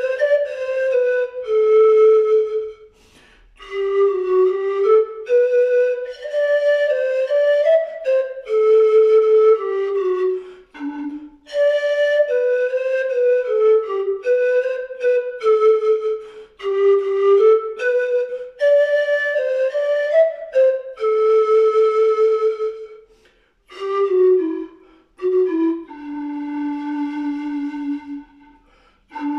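Background music: a slow solo flute melody played in short phrases with brief pauses, settling on a long low held note near the end.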